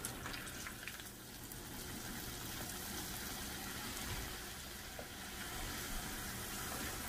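Tortilla triangles frying in hot oil, sizzling steadily.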